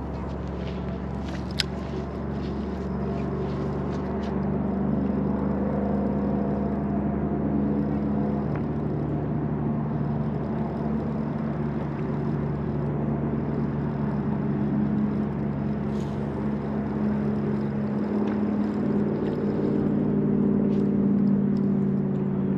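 A steady motor drone with several low pitches, growing louder a few seconds in and again near the end, and a single sharp click about a second and a half in.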